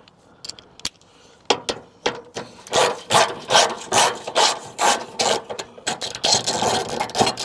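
Hand ratchet with a socket extension undoing a 10 mm bolt on a car's front wing bracket. The pawl rasps on each back-swing in quick strokes, two or three a second, starting about a second and a half in.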